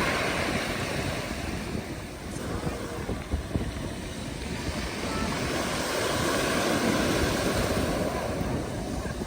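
Black Sea surf washing onto the beach, swelling and easing as waves break and draw back, with a fresh surge about six seconds in.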